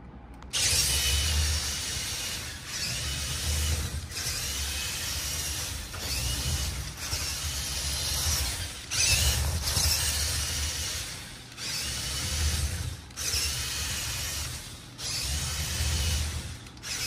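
Motorized building-block bigfoot off-road car (Sembo 8880) driving in a series of short runs of one to two seconds, with brief pauses between. Its electric motor and plastic gear train run loudly, with a whine that rises as each run starts.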